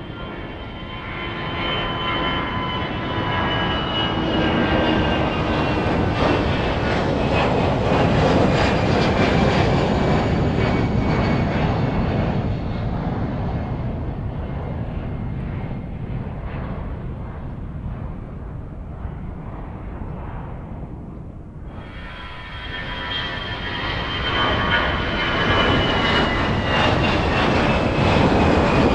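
CFM56-5B turbofan engines of Airbus A320-family airliners at takeoff thrust: a loud roar with a high fan whine that slowly falls in pitch. The roar swells and then fades, and about 22 seconds in it cuts to a second takeoff that builds up again.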